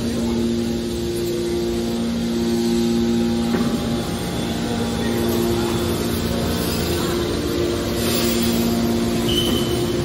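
Hydraulic scrap metal baler's electric motors and pumps running with a steady hum over general machine noise. The hum drops out briefly twice, the longer break about four seconds in.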